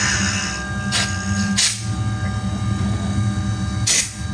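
Tormach 440 CNC mill's spindle running with a steady whine and hum while its end mill cuts a wooden pistol slide, with short bursts of cutting noise about a second in, again shortly after, and once more near the end.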